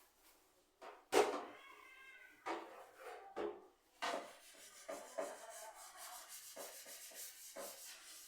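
Hand scrubbing and wiping of a hard surface, a steady rasping rub lasting about four seconds, after a few knocks and clatters in the first half.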